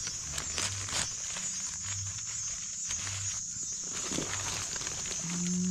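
Dry leaf litter and grass rustling and crackling as gloved hands work at the forest floor, cutting small mushrooms free with a knife: a run of short, scattered clicks and crackles.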